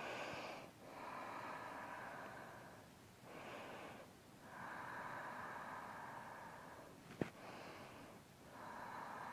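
A woman's slow, audible breathing during a held yoga pose, about three breaths in and out, some of them lasting two to three seconds. A single click about seven seconds in.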